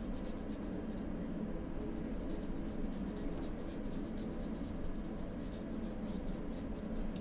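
Paintbrush stroking paint onto a stretched canvas: a string of short, scratchy brush strokes in uneven runs, busiest from about two seconds in, over a steady low hum.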